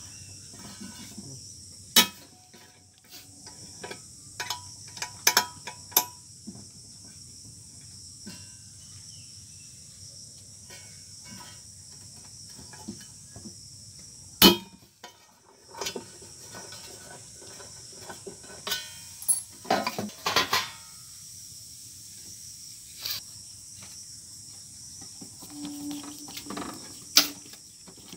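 Scattered clicks and sharp metallic knocks of a digital weighing scale being taken apart by hand: the cast platform bracket, bolts, rubber plug and plastic base cover are handled and set down. A steady high-pitched hiss runs underneath.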